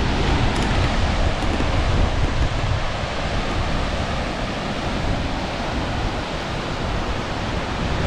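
Wind buffeting the camera microphone as it moves along a mountain ridge trail: a steady loud rush with a deep, unsteady rumble underneath.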